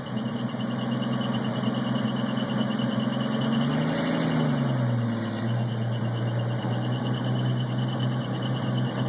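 1951 Chevrolet truck engine idling steadily, revving up briefly about four seconds in and settling back to idle a second or so later.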